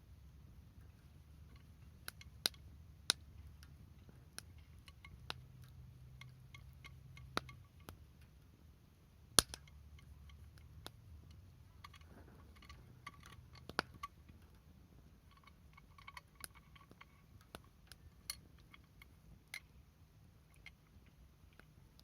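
Campfire of burning wood crackling: irregular sharp pops and snaps, a few at a time, the loudest about nine seconds in, over a faint low rumble.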